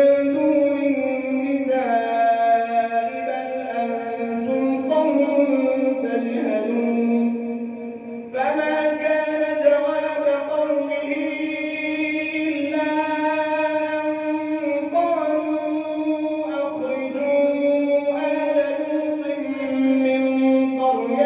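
Quranic recitation of Surat an-Naml in tajweed: one voice chanting in long, drawn-out melodic phrases, with a brief pause for breath about eight seconds in.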